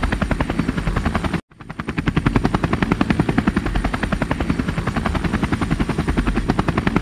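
Helicopter rotor sound effect: a rapid, steady chopping of the blades. It cuts out briefly about a second and a half in, then fades back up and carries on.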